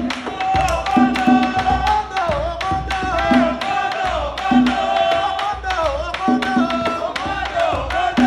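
Afro-Cuban hand drumming keeping a steady rhythm under a lead voice singing a wavering, sliding melody, with people in the room singing along.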